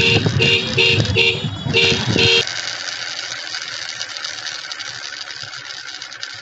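A two-tone horn beeps six short times in quick succession over a low rumble. Then a steady hiss follows.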